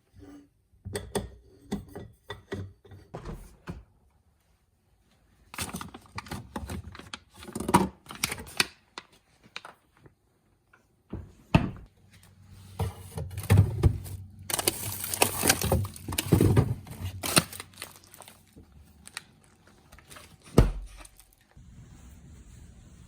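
Objects being handled: a string of knocks, clicks and thunks with some rustling and clatter, broken by short silences. A low hum runs under the second half.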